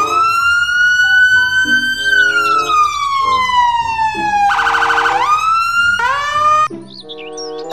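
Electronic police siren on a Mitsubishi police patrol car: one slow wail rising and then falling in pitch over about four seconds, a short fast warble, then a rise again before it cuts off near the end. Background music plays underneath.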